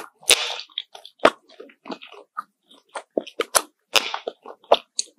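Close-miked chewing: irregular sharp crunches and wet mouth clicks, with a couple of longer crackly stretches, one near the start and one about four seconds in.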